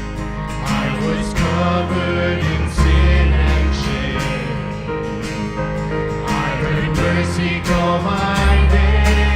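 Church worship music: a band with guitar and sustained bass notes playing continuously, with the chord changing every second or two.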